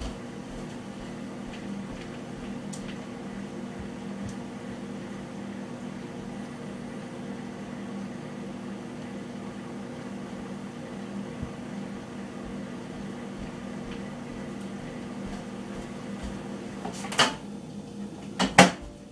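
A kitchen appliance running with a steady hum. Two sharp knocks about a second apart near the end.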